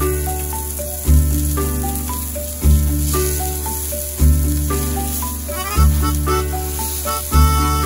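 Hamburger patty sizzling on a hot 6 mm black-iron griddle plate, a steady hiss heard under background music. The music has a bass note about every one and a half seconds and a stepping melody.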